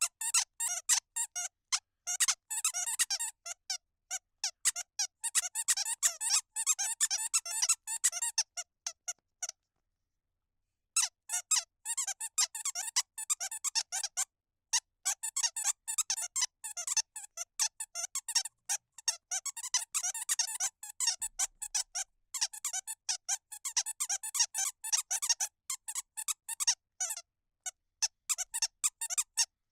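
Squeaky hound-dog toy squeezed over and over, giving quick runs of short, high squeaks. The squeaking breaks off for about a second and a half about a third of the way in, then carries on.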